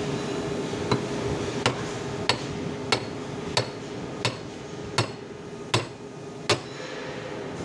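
About nine sharp taps in an even rhythm, roughly one and a half a second, struck on a welding machine's small cooling-fan motor, over a steady hum.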